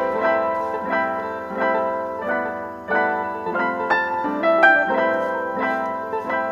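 Background piano music: a melody of single notes struck a couple of times a second, each fading away.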